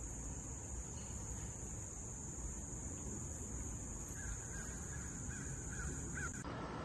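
Steady high-pitched drone of insects, with a bird calling a quick run of about six short notes about four seconds in; the drone cuts off abruptly near the end.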